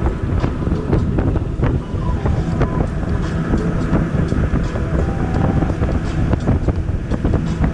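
Loud wind buffeting the microphone, a steady low rumble with scattered knocks and clicks.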